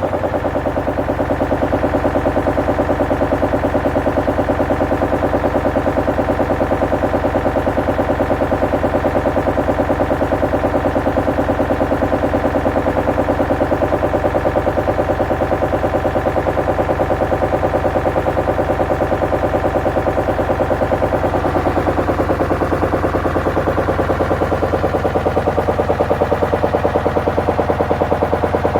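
Hoover washing machine spinning at a steady speed with pieces of wood in the drum, giving a fast, continuous knocking rattle over the hum of the motor.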